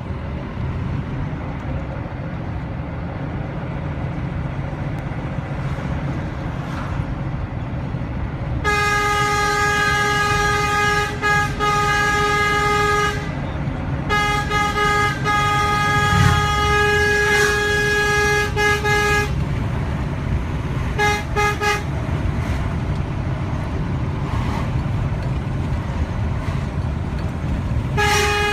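Semi-truck's engine and road noise heard from inside the cab, broken by long blasts of a single-tone horn: one held for about four seconds a third of the way in, a second lasting about five seconds just after, two short toots, and another blast starting near the end.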